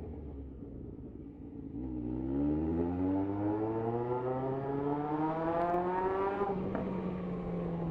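Yamaha XJ6 motorcycle's inline-four engine accelerating, its pitch climbing steadily for about four and a half seconds, then holding level near the end.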